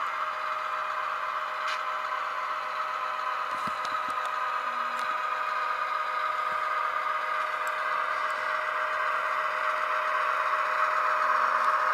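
A sound-equipped model of a GP38-2 diesel locomotive runs along the track, its onboard speaker playing a steady diesel engine drone with no deep bass. A few faint clicks are heard from the model on the rails, and the sound grows a little louder near the end as the locomotive comes closer.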